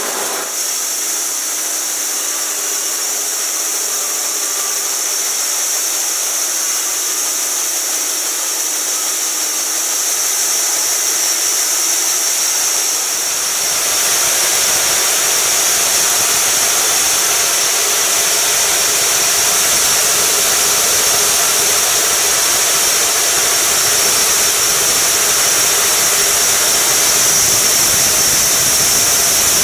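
Homemade band sawmill running, its 3.8 kW electric motor driving the blade wheels through a V-belt, with a steady whirring hiss. About halfway through, the band blade bites into the log and the sound grows louder and fuller as it starts cutting, then holds steady.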